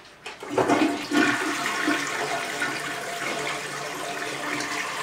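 Toilet flushing: a rush of water that starts about half a second in, surges, then runs on steadily as the bowl drains and refills.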